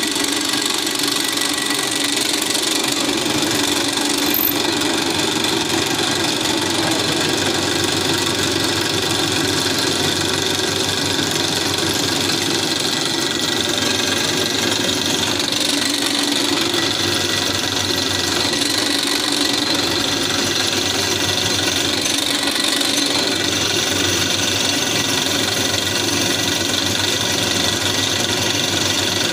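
Drill press running steadily, its motor humming with a light rattle as it drills an 8 mm hole in a metal workpiece.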